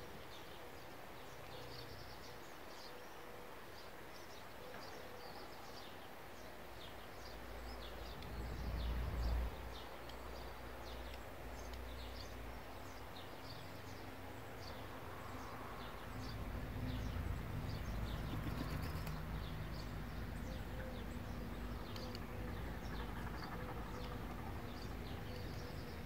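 Garden ambience: small birds chirp at a distance in short, high notes that go on all through. A low rumble swells briefly about eight seconds in, and another low rumble comes in at about sixteen seconds and stays.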